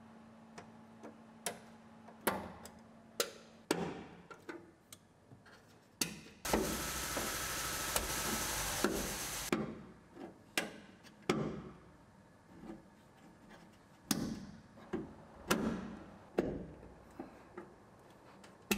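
Plastic push-in trim clips being squeezed and snapped into their holes in the truck body, a string of sharp, irregularly spaced clicks. About six seconds in, a steady hiss runs for about three seconds.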